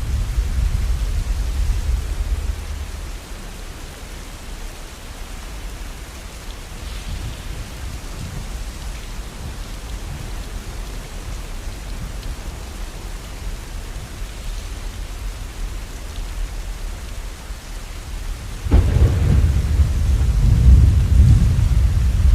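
Steady rain with thunder: a low rumble dies away about three seconds in, and a louder peal of thunder breaks in suddenly near the end.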